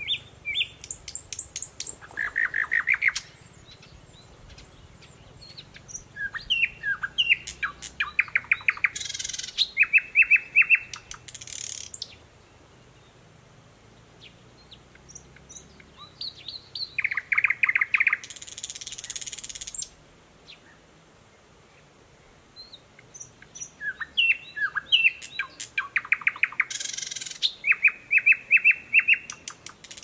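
Thrush nightingale singing: four song phrases with pauses of a few seconds between them. Each phrase is a fast run of repeated notes broken by harsh, rasping rattles.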